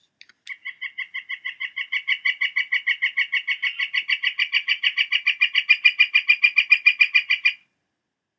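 Northern flicker giving its long call: a rapid, even series of notes, about six to seven a second, kept up for about seven seconds and growing louder before stopping abruptly.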